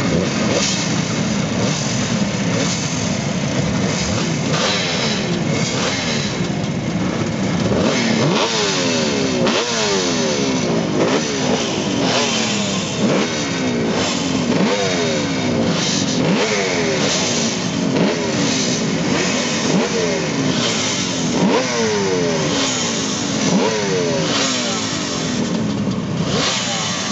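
A row of Kawasaki 750 H2 air-cooled two-stroke triple motorcycles idling and being revved together, throttles blipped over and over so that the engine pitch keeps sweeping up and back down from several bikes at once.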